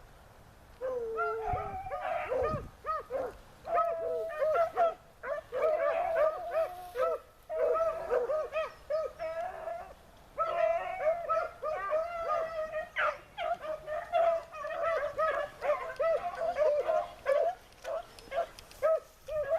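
A pack of beagles baying, short high yelping calls from several dogs repeated and overlapping, with only brief pauses: hounds giving tongue as they run a rabbit's scent.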